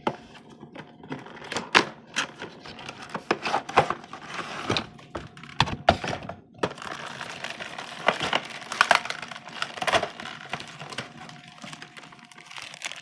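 Action-figure packaging being opened and handled: plastic crinkling and tearing with many small clicks and knocks.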